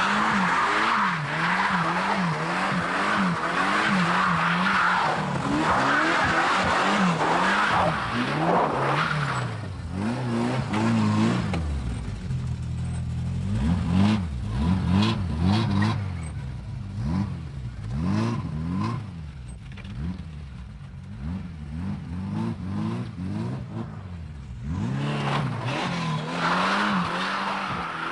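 Ferrari 328 GTB's V8 engine driven hard, its pitch rising and falling again and again as it revs up and drops back through the gears. A hiss of tyres on a wet road is heard over it in the first several seconds and again near the end.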